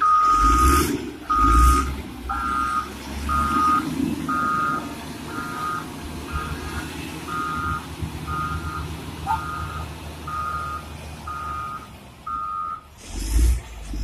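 Caterpillar 120K2 motor grader's reverse alarm beeping about once a second over the rumble of its diesel engine; the beeping stops about a second before the end.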